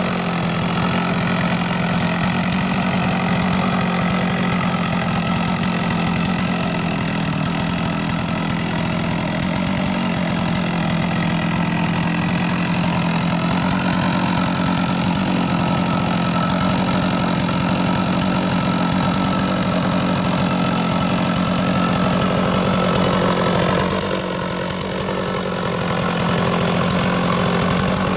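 Chainsaw mill cutting a large log lengthwise, the saw's two-stroke engine running steadily at high revs under load. The engine note dips briefly near the end, then comes back up.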